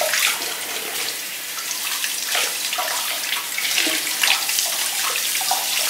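Kitchen tap running, the stream splashing over hands and pieces of fish being rinsed in a stainless steel sink, with an uneven spattering hiss as the hands move through the water.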